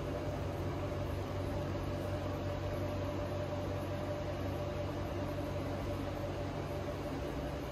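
Steady mechanical hum and hiss with a constant whining tone, unchanging throughout.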